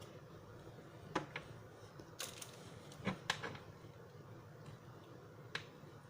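A few faint, sharp plastic clicks and ticks from a toy action figure being handled, its jointed claws being bent.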